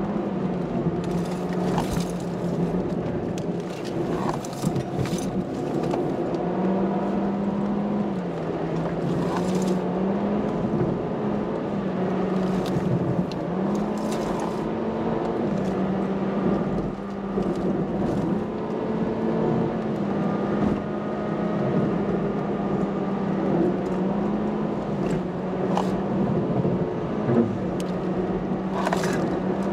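Toyota car's engine and road noise heard from inside the cabin while driving, the engine note rising and dipping again and again as the throttle changes, over a steady hiss, with a scattering of short clicks.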